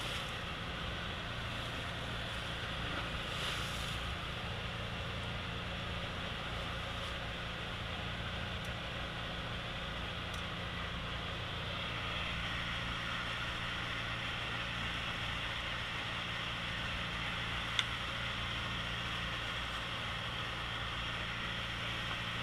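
A fishing boat's engine running steadily with an even low hum, and one sharp click late on.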